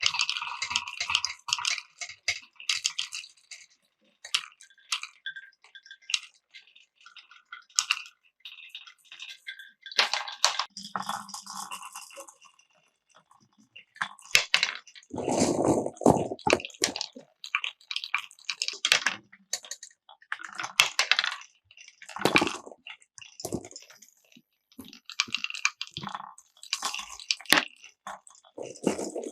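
Glass marbles rolling and clacking through a wooden Cuboro marble run: a string of irregular clicks, knocks and short rolling runs, with a brief lull partway through.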